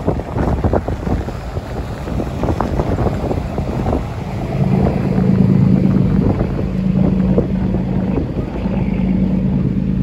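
Boat engine running in a low rumble, with wind buffeting the microphone; about halfway through a steady low hum comes in and holds.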